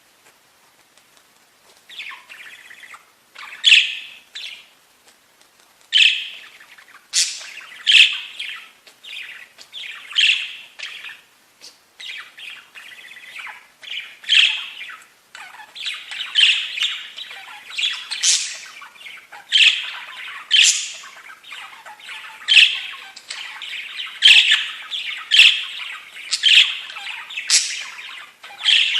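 Budgerigar chirping and squawking: a string of sharp calls about once a second, with softer chatter between them that grows busier in the second half.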